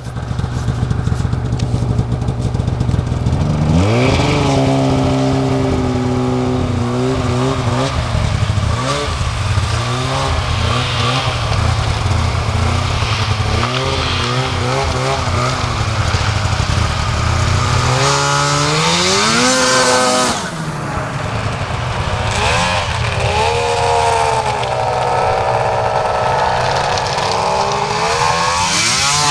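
Two-stroke Arctic Cat snowmobiles, a Crossfire 600 twin and a ZRT 800 triple, running and revving as they pass. The revs climb sharply about four seconds in, again past the middle and once more near the end.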